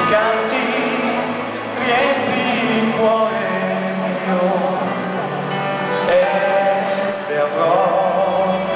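A man singing a Christian song live into a handheld microphone with vibrato, over a held instrumental accompaniment.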